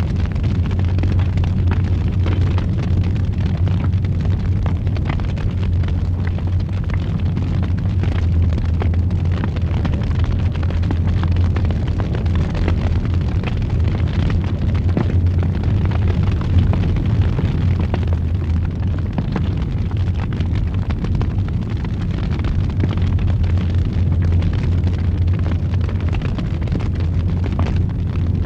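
Fire burning in a fireplace with a steady low roar and scattered small crackles and pops.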